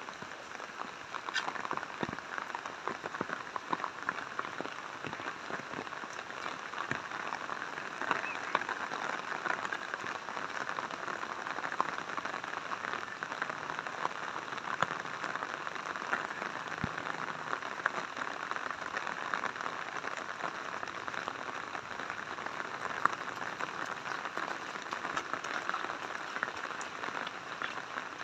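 Steady rain falling and splashing on the ground, with many separate drops ticking close by.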